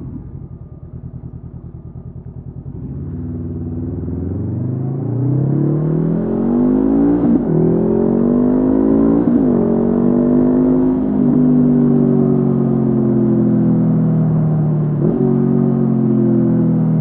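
Honda CB500F parallel-twin engine through a Mivv GP Pro exhaust, heard from the rider's seat. It runs at low revs at first, then pulls hard from about four seconds in, with the note rising and dropping back at several upshifts before settling into a steady cruise.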